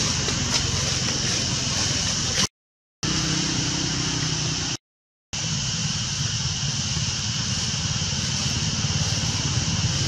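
Steady outdoor background noise: a low motor rumble with a high hiss over it. It drops out to dead silence twice for about half a second each, a few seconds in.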